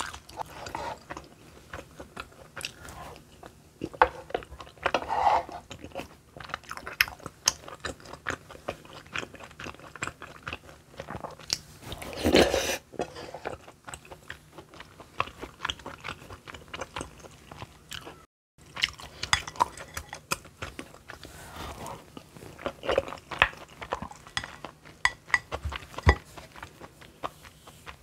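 A person eating close to a clip-on microphone: chewing and biting, with many small clicks and crunches. A longer, louder mouthful comes about halfway through, and the sound cuts out completely for a moment about two-thirds of the way in.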